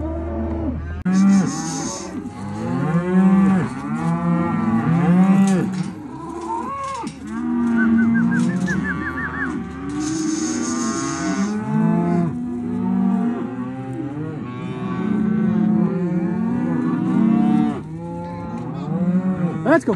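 A herd of black beef cattle, cows and calves, mooing in a corral: many overlapping calls, one after another, with no break.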